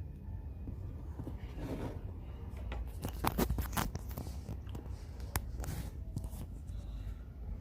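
Butter slime mixed with air-dry clay being squished and stretched by hand. It makes soft crackles and sharp pops, most of them in the middle few seconds.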